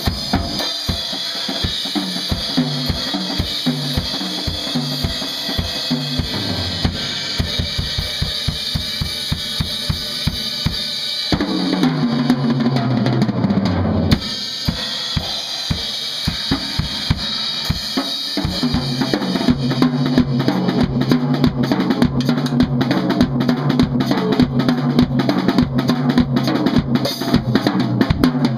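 A large acoustic drum kit played solo at speed: fast tom fills stepping down from the high toms to the floor toms over bass drum strokes and constant cymbal wash. About halfway, a long roll runs down the toms and stops sharply; near the end come rapid rolls around the toms.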